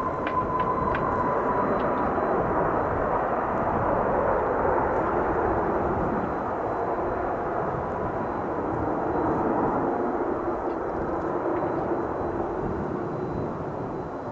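Dassault Falcon 7X business jet's turbofan engines rushing loudly as it passes on landing, with a high whine that falls in pitch over the first couple of seconds.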